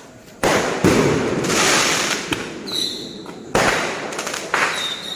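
Fireworks going off: a series of loud bangs with crackling in between, and a short high whistle twice.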